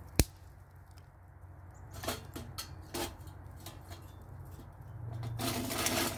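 Small dry sticks being snapped and fed into a small collapsible wood-burning camp stove: one sharp snap just after the start, a few lighter cracks in the middle, and about a second of rustling scraping near the end.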